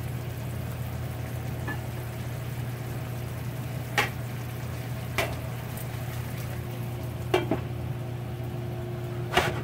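Dungeness crab pieces simmering in sauce in a frying pan: a steady sizzle. A few short knocks and clinks sound over it, the loudest near the end as a glass lid is set on the pan.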